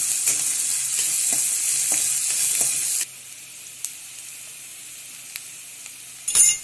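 Chopped onion and green chilli sizzling in hot oil with mustard seeds in a kadhai, with a few light scrapes and ticks of a spatula stirring them. About three seconds in the sizzle drops suddenly to a quieter level, and a brief loud noise comes near the end.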